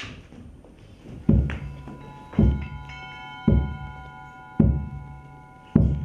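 Slow, deep drum-like thuds, five of them about a second apart beginning about a second in, with held bell-like tones ringing above them: a percussive music cue.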